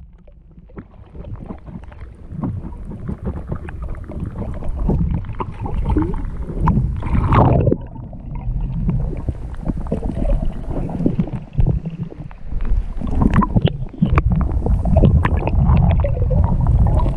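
Muffled underwater rumble of moving water with many small knocks and clicks, picked up by an action camera in a waterproof housing held under the surface beside a hooked shad. It grows louder over the first couple of seconds and dips briefly twice.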